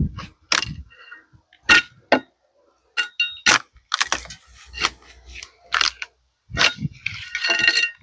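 Bark cracking and snapping as it is pried off a log with a bevelled hand tool: about a dozen sharp, irregular cracks and knocks, with a longer rasping stretch near the end.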